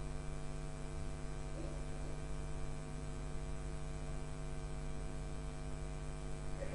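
Steady electrical mains hum: a constant drone of several fixed tones over a low buzz.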